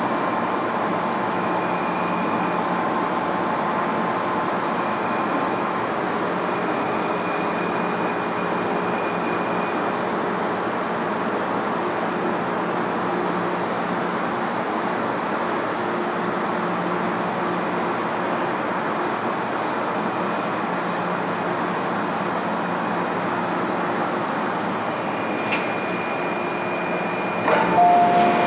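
MTR M-Train running along an underground platform, heard from inside the carriage: steady rumble with the electric traction drive's hum and whine. Near the end there is a louder sound of short alternating two-pitch tones.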